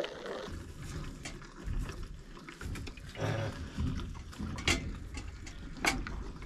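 A calf sucking milk from a feeding bottle: uneven slurping and snuffling sounds, with two sharp smacks near the end.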